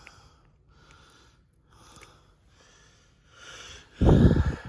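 A person breathing heavily close to the microphone, in soft puffs about once a second, then a loud low thump about four seconds in.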